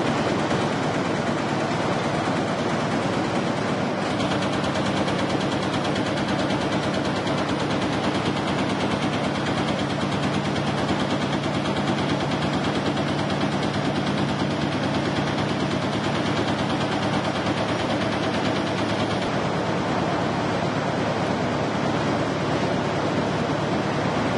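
High-speed all-across perforating press punching sheet metal: a rapid, even stream of punch strokes over a steady machine hum, unchanging throughout.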